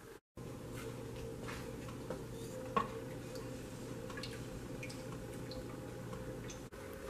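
Wooden spoon stirring milk in a stainless steel Instant Pot inner pot, with faint scrapes and light ticks against the pot and one sharper tap a little under three seconds in, over a steady low hum.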